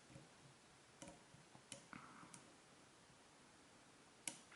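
Faint, scattered clicks of a modified dimple flag pick working the pins inside a TESA T60 dimple euro cylinder, with one sharper click about four seconds in.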